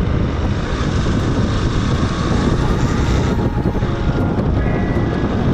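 Hero XPulse 200's single-cylinder engine running steadily at low road speed, with wind rushing over the action-camera microphone.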